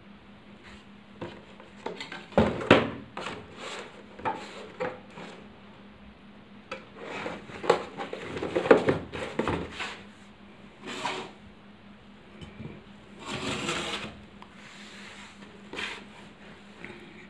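Cardboard box and copper water bottle being handled and set down on a wooden table: irregular knocks, clicks, scrapes and rustles, busiest about two to three seconds in and again from about seven to ten seconds.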